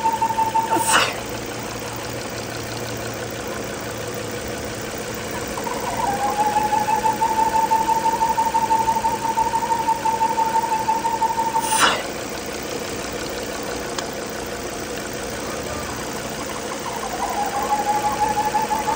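Volvo engine idling with a steady whistle, the vacuum leak of a failed PCV valve diaphragm, which goes with a lean-running code. The whistle cuts off abruptly with a knock about a second in, slides back in a few seconds later, cuts off again with a knock about twelve seconds in, and returns near the end.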